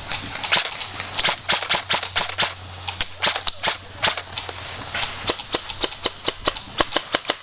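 Airsoft guns firing sharp, irregular shots, a few per second.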